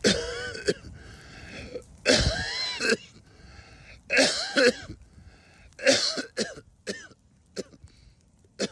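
A man coughing hard in repeated bouts, with throat clearing: about four loud fits roughly two seconds apart, then shorter coughs near the end.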